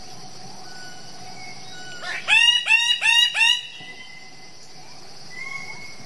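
Bird-of-paradise calling: a quick run of four loud calls, each sweeping sharply up in pitch, about two seconds in.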